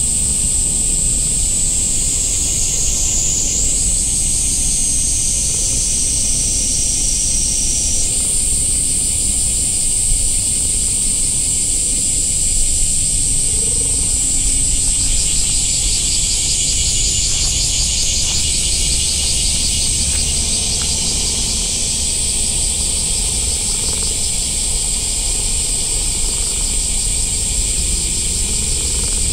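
A steady, high-pitched insect chorus that shifts in pitch a few times, over a low rumble.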